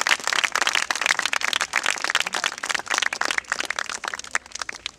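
A group of people clapping their hands, a dense patter of claps that thins out and fades near the end.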